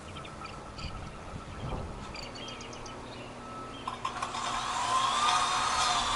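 Low background for about four seconds. Then the electric motor of a Ryobi 40-volt cordless yard tool, running on a Biswaye replacement battery, spins up and runs with a steady high whine.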